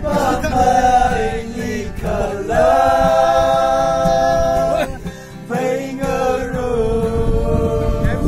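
A group of voices singing together, accompanied by an acoustic guitar, in three long phrases of held notes with short breaks between them.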